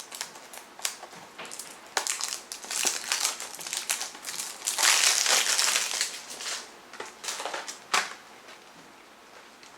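Crinkling and crackling of plastic wrapping being torn and peeled off a CD case, busiest about five seconds in and dying down near the end.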